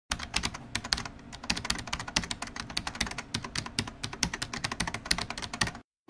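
Computer keyboard typing: fast, uneven key clicks that stop suddenly just before the end.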